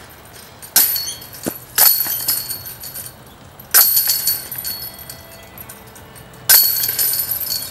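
Flying discs striking the hanging chains of a disc golf basket four times, each a sudden metallic chain rattle and jingle that rings on for about a second. The first two come a second apart, then the gaps grow to two and nearly three seconds.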